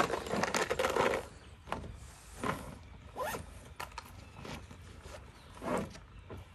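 Clothing and gear rustling, with a loud zipper-like rasp through the first second. Then come a few separate soft swishes spaced under a second apart.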